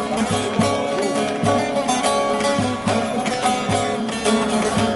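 Bağlama (Turkish long-necked saz) being played: a lively, rhythmic melody of plucked and strummed notes.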